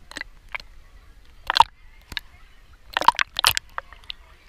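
Pool water splashing and sloshing around a waterproof camera held at the surface, in a run of short splashes. The loudest comes about a second and a half in, and a cluster follows around three seconds in.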